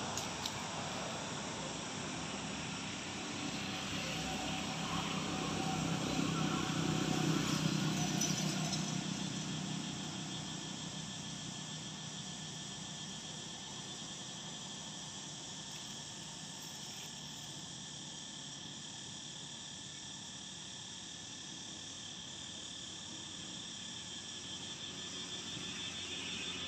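Outdoor ambience of steady high insect calls, with a low engine-like rumble that swells about four seconds in and fades away by about ten seconds.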